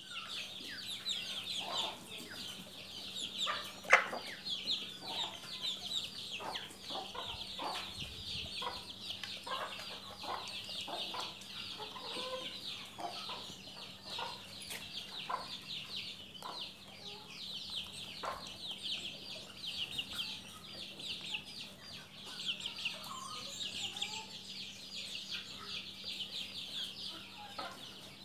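Hens clucking while they peck grain from a wooden trough feeder, with many small irregular taps and one sharp knock about four seconds in. A dense, high, rapid chirping runs underneath.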